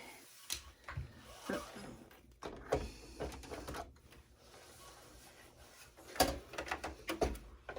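A long-handled Phillips screwdriver and loose parts being worked against a desktop computer's case, heard as scattered clicks, scrapes and knocks. The loudest knocks come about six seconds in.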